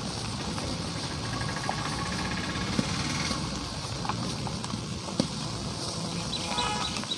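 Dry cement lumps crumbled in the hands, powder sifting down into a basin: a steady gritty rustle with small sharp cracks now and then as pieces snap.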